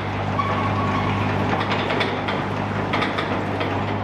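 Hand grease gun being pumped into the freshly installed bushings of an excavator coupler, its lever clicking about once a second over a steady low hum.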